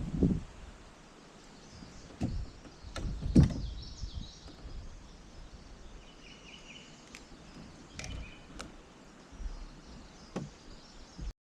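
Scattered hollow knocks and bumps against a kayak hull, the loudest about three and a half seconds in, over a quiet outdoor background with a few faint bird chirps in the middle.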